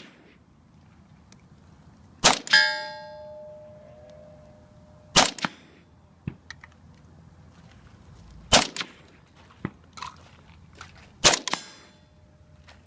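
Four single AR-15 rifle shots about three seconds apart. Just after the first, a steel target rings with a clear metallic tone for about three seconds, the sign of a hit. A fainter ring follows the last shot.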